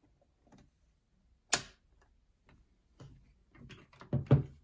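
A single sharp plastic click about a second and a half in, as the battery cover snaps shut on a small plastic sewing machine. Light knocks and a dull thump follow near the end as the machine is handled and set in place.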